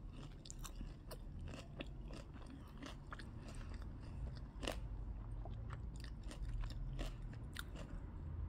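A person chewing sushi close to the microphone, with soft mouth sounds and scattered small crunchy clicks.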